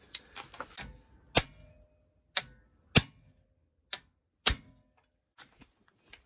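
Hammer striking the back of a manual impact screwdriver, five sharp metallic blows about a second apart, some with a brief high ring, to shock loose a stuck Torx T30 brake rotor retaining screw. A few lighter taps come first as the tool is set in place.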